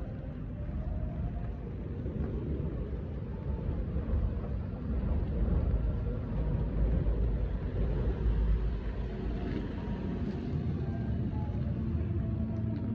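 Steady low rumble of outdoor street ambience, swelling slightly in the middle.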